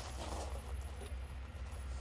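Soft footsteps and small rustles of a person stepping away, over a steady low rumble.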